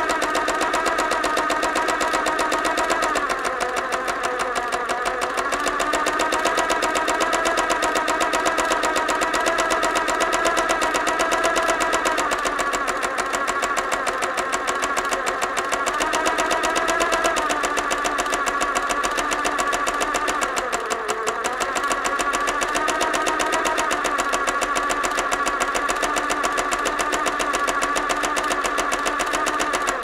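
Sewing machine running continuously, its needle stitching in a very fast, even rattle; its pitch sags briefly and picks up again a few times as the speed varies.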